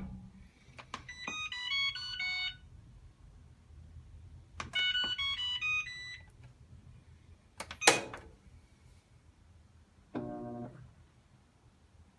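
Whirlpool Cabrio washer's control panel playing its short electronic tune of stepped beeps twice, followed by a sharp click and, near the end, a brief low buzz.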